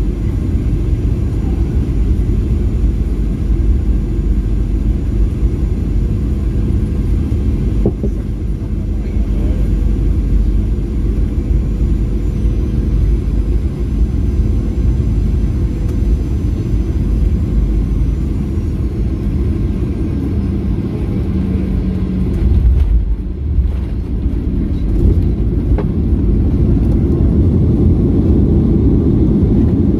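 Steady low rumble of a Boeing 737's engines and airflow heard inside the cabin near the front. Faint high engine tones fade out about two-thirds of the way through, and the rumble shifts briefly and then grows a little louder near the end.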